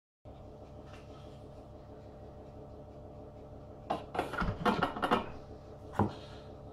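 Stainless steel Thermomix TM5 mixing bowl being set back down into its base, a quick run of clunks and metal knocks about four seconds in, then a spatula knocking once against a stainless steel bowl near the end. A low steady room hum lies underneath.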